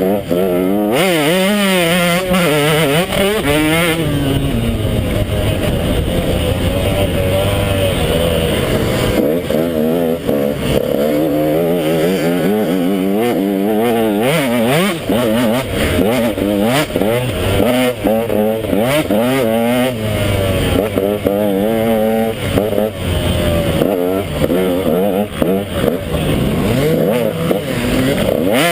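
KTM 150 XC two-stroke dirt bike engine revving up and down continually under hard riding, its pitch rising and falling every second or so as the throttle is worked.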